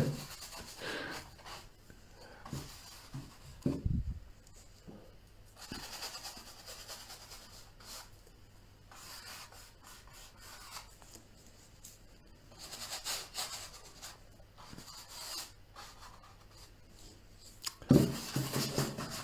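Flat bristle brush scrubbing and stroking oil paint onto a stretched canvas, in separate bursts of dry rubbing with short pauses between them. A soft low thump comes about four seconds in.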